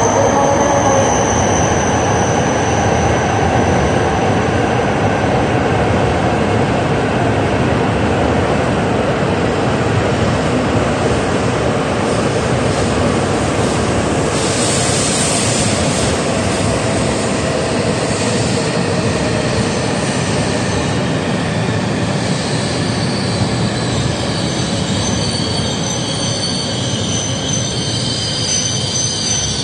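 H5 series Shinkansen pulling in along the platform and slowing, a steady rush and rumble of the train running past. A brighter hiss comes about halfway through, and thin high squealing tones join in over the last few seconds as it draws to a stop.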